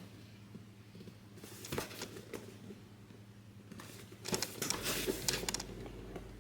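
Product packaging being handled and opened by hand: intermittent rustling and crinkling with light clicks, busiest about a second and a half in and again from about four to five and a half seconds in.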